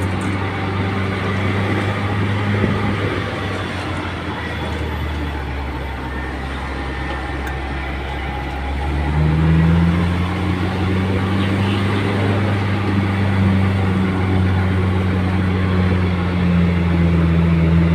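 A vehicle engine running steadily under way. Its note rises in pitch and gets louder about nine seconds in, then holds.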